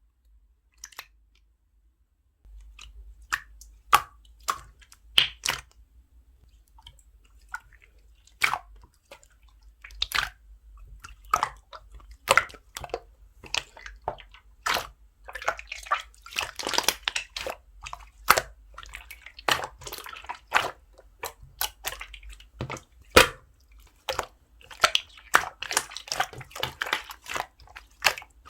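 Slime being squished, pressed and poked by hand, giving sticky clicks and wet pops, with denser runs of crackling about halfway through and near the end. It starts a couple of seconds in.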